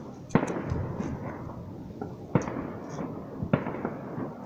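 Fireworks going off: a run of sharp bangs, the loudest near the start, about two and a half seconds in and about three and a half seconds in, with smaller pops between them over steady background noise.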